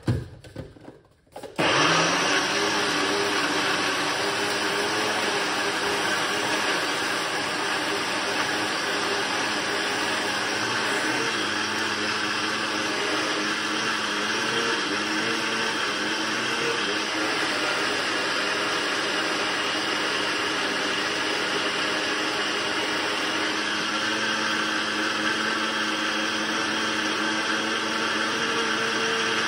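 Countertop blender: a few short knocks, then about two seconds in the motor starts and runs steadily, blending leafy greens, cucumber and water into a green smoothie.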